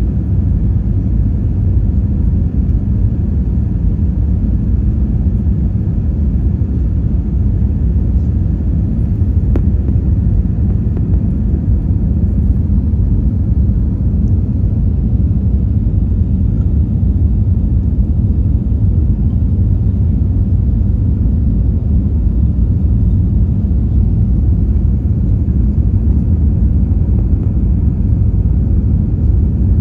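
Steady low rumble of a jet airliner's engines and airflow, heard from inside the passenger cabin.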